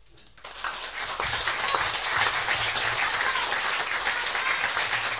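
Audience applauding, starting about half a second in and quickly swelling to steady applause.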